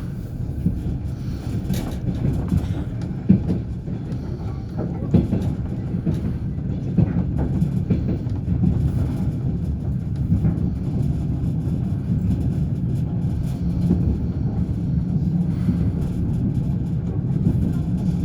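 Passenger train wheels running along the track: a steady low rumble with irregular sharp knocks of the wheels over rail joints.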